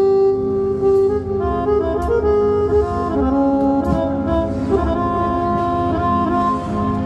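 Roland XPS-60 keyboard playing an Indian-style melody in a reedy wind-instrument tone. Long held notes step between pitches over a sustained chord underneath.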